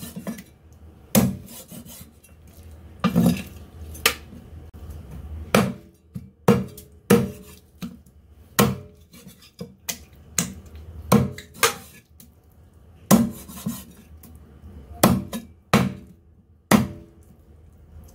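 Chinese cleaver chopping a raw chicken into pieces on a thick wooden chopping block: a series of about seventeen sharp chops, irregularly spaced, roughly one a second.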